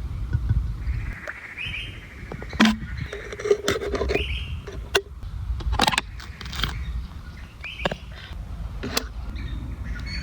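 Birds chirping over a low outdoor rumble, with several sharp knocks scattered through it.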